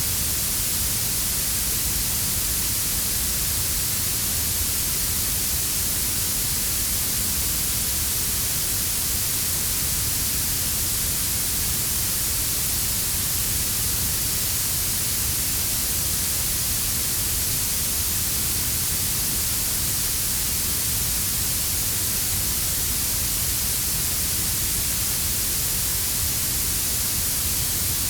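Steady synthetic blue noise: an even hiss weighted toward the highest pitches, mixed with a quieter, deep brown-noise layer underneath.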